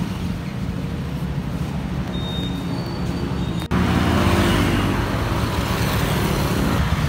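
Motorcycle and scooter engines running at idle with a steady hum and a faint high beep. About halfway through, an abrupt cut brings in a louder group of motorbikes idling and revving together.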